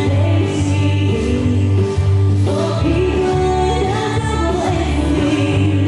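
A song with a lead vocal over a steady bass beat, played as the line-dance music.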